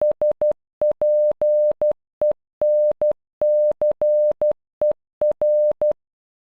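Morse code beeps of a single steady pitch spelling SPENCER once (... .--. . -. -.-. . .-.): short dots and longer dashes with even gaps between letters.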